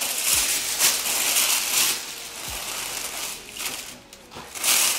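Tissue paper rustling and crinkling as it is handled and pulled out of a shoebox, loudest in the first two seconds and again near the end.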